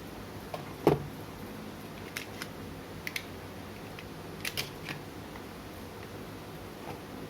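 Handling noise from a new smartphone and its packaging: a soft knock about a second in, then scattered light clicks and taps, over a steady background hiss.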